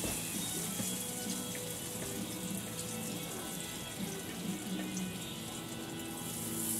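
Tempura-battered bell pepper frying in hot oil in a pan on a gas grill: a steady sizzling hiss with faint crackles, the sign that the oil has got hot enough to fry.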